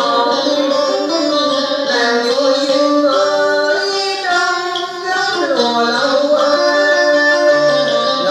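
Music: a slow melody with a long held, wavering note over stepping accompaniment notes.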